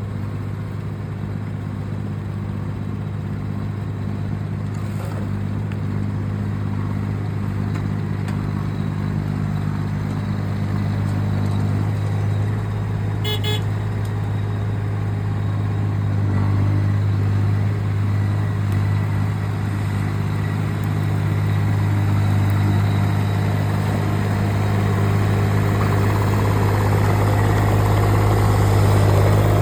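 Engine of working log-handling machinery running steadily with a low hum, growing gradually louder. A brief rattling clatter comes about 13 seconds in.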